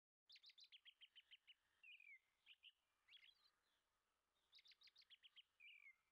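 Faint songbird song: a quick run of high notes ending in a falling slurred note. The phrase is sung twice, with a few separate chirps between.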